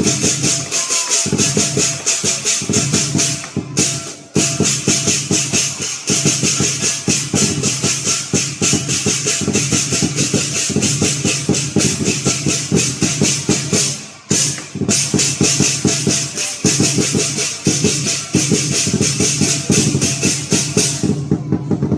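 Lion dance percussion band playing: a big drum beaten in a fast, dense rhythm under clashing cymbals. It breaks off briefly twice and stops about a second before the end.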